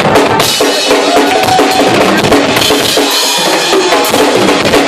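Live noise-rock duo of drum kit and electric bass guitar playing loud: dense, rapid drum hits over sustained distorted bass notes.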